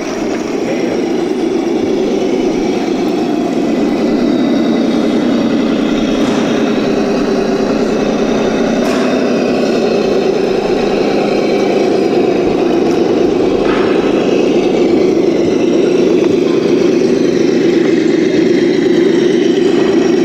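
Electric motor and gear drivetrain of a 1/10-scale Axial SCX10 II Jeep Cherokee RC crawler whirring steadily as it crawls through water and up a dirt mound, growing slightly louder.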